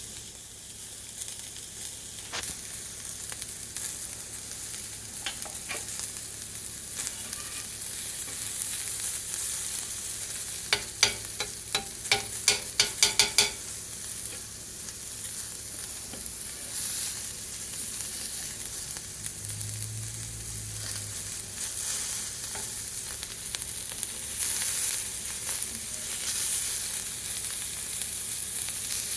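Breakfast food sizzling and frying in a hot pan, a steady crackling hiss. About a third of the way in comes a quick run of sharp taps.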